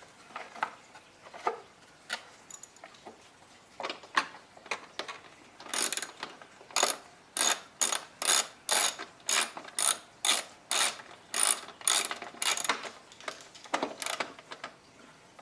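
Hand ratchet clicking as it tightens the fasteners holding the plastic cover onto a lawn mower's self-propulsion drive. A few scattered clicks come first, then a quick steady run of about three clicks a second through the middle, and a couple more near the end.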